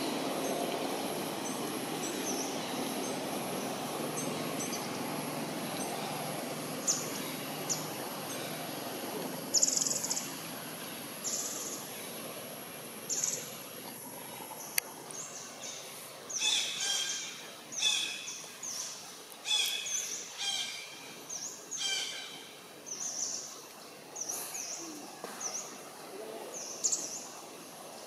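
Birds chirping in short, repeated calls that grow busier about halfway through, over a thin steady high whine and a low background rumble that fades in the first half.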